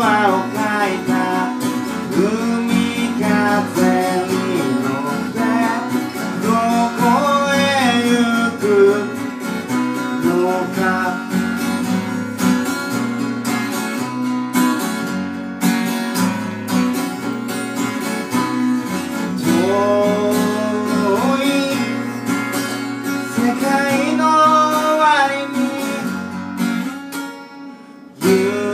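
Acoustic guitar strummed in steady chords while a voice sings a melody over it, a live solo performance of a song with guitar and voice. The playing drops away briefly near the end, then picks up again.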